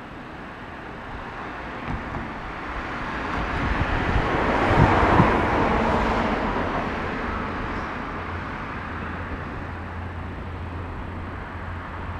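A vehicle passes by, its noise swelling to a peak about five seconds in and then fading away.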